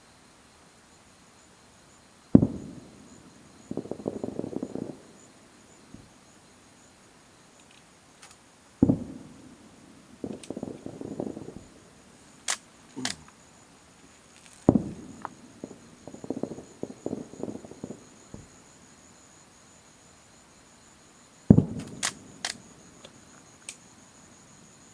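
Aerial firework shells bursting with a sharp bang, four times about six seconds apart, most followed a second or so later by a spell of crackling. Crickets chirr steadily underneath.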